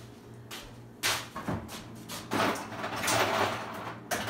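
Household handling noises in a kitchen: a sharp knock about a second in, two longer rustling sounds in the middle, and a click near the end.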